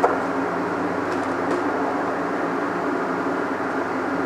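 Stick-welding arc from a Tweco Fabricator 141i inverter welder, struck with a short snap at the start and then burning with a steady, even crackle over a low machine hum.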